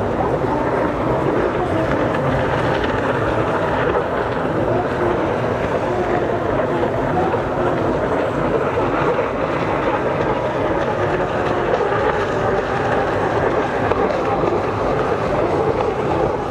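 Several racing jet skis running at speed, their engines heard from the shore as a steady mixed drone.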